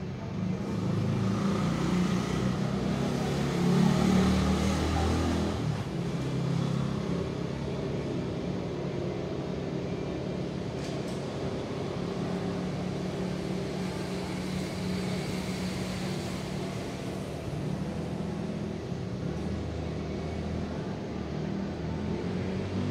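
A low, steady engine-like rumble, louder for the first few seconds and then holding even.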